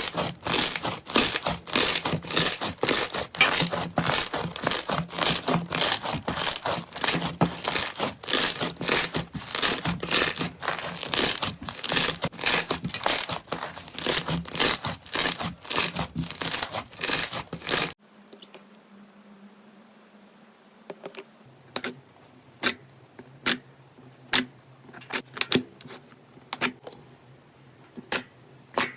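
Slime being worked by hand: dense, loud crunching and crackling that goes on steadily, typical of crunchy slime. It stops abruptly about two-thirds of the way through, after which only scattered single sharp clicks or pops are left over a faint low hum.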